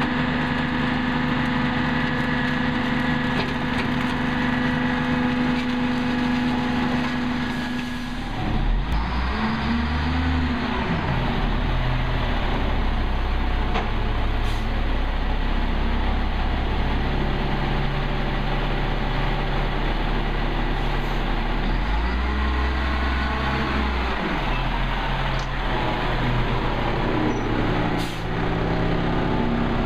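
Peterbilt 320 refuse truck's diesel engine running steadily, then revving up and falling back twice, about a third of the way in and again about two-thirds through, as the truck pulls ahead. A short air-brake hiss comes near the end.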